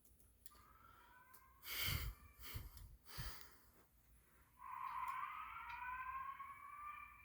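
Fire alarm speaker playing the Simplex 4003 fire message's rising, siren-like whoop tone: a faint rising sweep, then a louder one that starts about four and a half seconds in and keeps climbing slowly. A few loud knocks come between the two sweeps.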